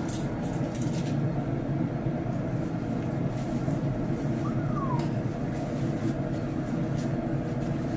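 Steady low rumble of a running Camp Chef pellet smoker with its lid open. Over it come a few sharp clicks and crinkles as tongs lift a foil-wrapped rack of ribs off the grate.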